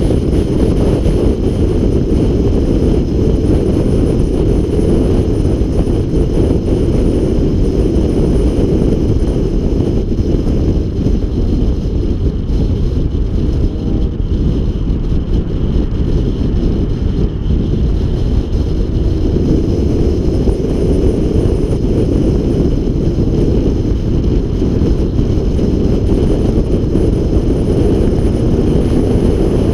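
Car driven at speed around a racetrack: a steady low rumble of engine and road noise with wind on the microphone, a little quieter and duller about halfway through.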